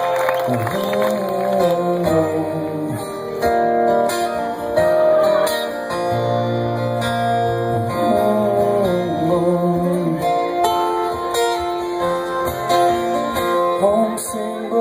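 Live band playing an instrumental passage led by acoustic guitar, with sustained and sliding notes.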